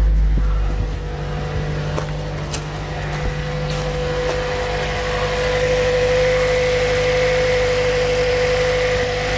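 Toyota Prius Plug-In's 1.8-litre four-cylinder petrol engine running steadily just after a jump start from a dead 12 V auxiliary battery, with a steady whine over the engine hum. It gets a little louder about halfway through.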